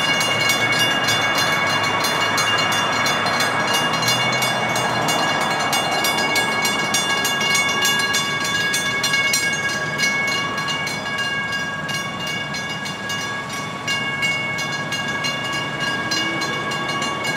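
WC Hayes mechanical railroad crossing bells on an activated grade crossing, several ringing together with rapid, continuous strikes and a steady metallic ring. This signals that a train is approaching.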